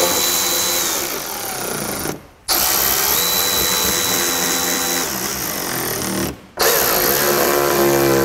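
Cordless ratchet motor driving screws into a plastic mud flap, in three runs of a few seconds each with a steady whine, broken by short pauses about two seconds and about six and a half seconds in.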